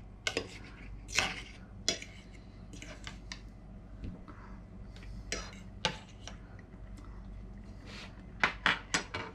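Cutlery clicking against a plate as someone serves and tastes food: scattered light clinks a second or so apart, then a quick run of four or five clinks near the end.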